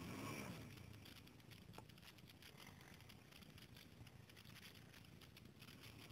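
Near silence: faint rustling and light clicks of a handheld phone being moved about. A brief, faint hum rises and falls right at the start.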